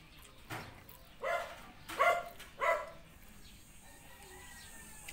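A dog barking: a quick run of three sharp barks about two-thirds of a second apart, starting a little over a second in, after a fainter bark about half a second in.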